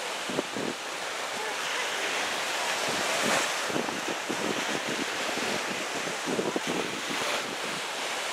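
Small waves washing onto a shingle beach, with wind buffeting the microphone; the surf swells about three seconds in.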